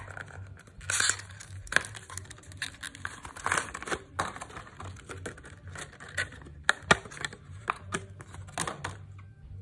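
Small cardboard cable box and its plastic insert being opened and handled, with irregular clicks, taps and crinkling rustles as a braided USB cable is taken out; the handling stops shortly before the end.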